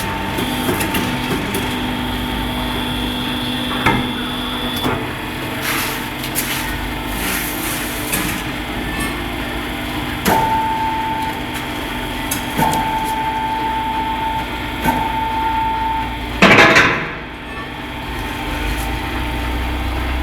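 Tyre-changing work on a large wheel: sharp metal knocks and clanks a few seconds apart over a steady machine whine that starts and stops, with one brief loud rush of noise near the end.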